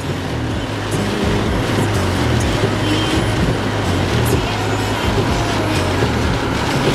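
Heavy rain on a moving car, heard from inside the cabin: a steady hiss of rain hitting the roof and windshield and tyres on the wet road, over an uneven low rumble.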